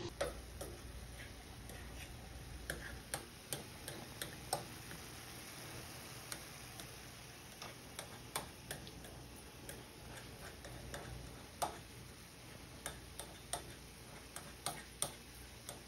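Faint, irregular clicks and taps of a cooking utensil against a frying pan as taco meat is stirred, over a low steady hum.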